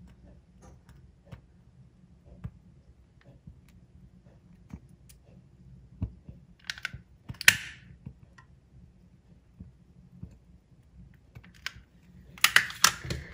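Scattered light clicks as a long-nosed utility lighter is worked to light the wicks of a three-wick jar candle. There are two short hissy bursts about seven seconds in. Near the end comes a louder run of rapid clattering, the loudest sound.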